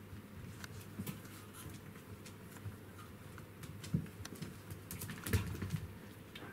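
Corgi paws and claws pattering and clicking on a hard wood and tile floor as puppies and their mother move about. There are two louder knocks, about four and five seconds in.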